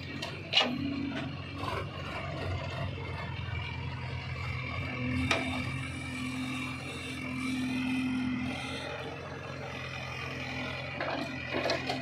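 Case 851EX backhoe loader's diesel engine running under hydraulic load as the backhoe arm works, with a sharp knock about half a second in, another about five seconds in, and a cluster of knocks near the end as the bucket tips dirt into a tractor trailer.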